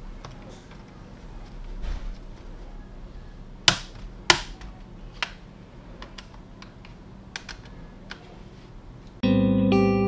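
Small taps and clicks from hands handling an opened laptop and small tools, with two sharp clicks about four seconds in. Near the end, loud electric-guitar music with distortion starts abruptly.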